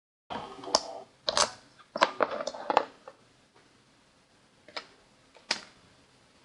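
A quick run of sharp clicks and taps, then two single clicks a little apart near the end.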